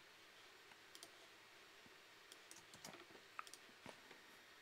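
Near silence with faint clicks of a computer mouse and keyboard: a single click about a second in, then a quick scatter of clicks in the second half.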